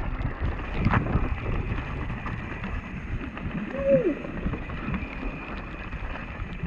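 Wind rushing over the helmet camera's microphone and mountain bike tyres rolling over a wet gravel trail, with knocks and rattles from the bike on the rough ground. A brief falling tone sounds about four seconds in.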